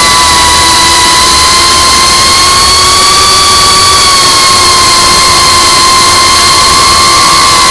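FPV quadcopter's electric motors and propellers whining steadily under a loud rush of noise, heard through the quad's onboard camera. The whine rises slightly in pitch about three seconds in, then eases back down.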